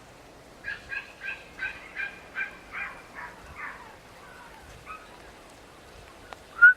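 A bird calling outside: a run of about nine short, clear notes, roughly three a second, spaced out more toward the end. Near the end a loud whistled tone starts.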